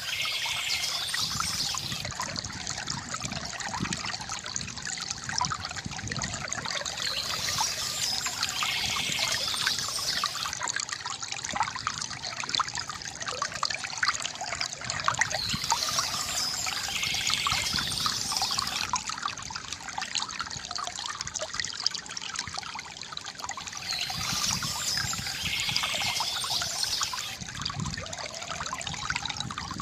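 Water trickling and splashing from a bamboo fountain, a steady gurgle full of small drips. Birds chirp over it in bursts about every eight seconds, four times.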